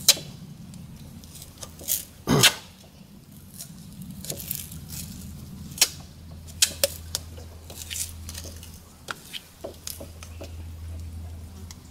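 Scattered clicks, clinks and knocks of hands and a hand tool working on parts in a car's engine bay, with the loudest double knock about two seconds in, over a faint low steady hum.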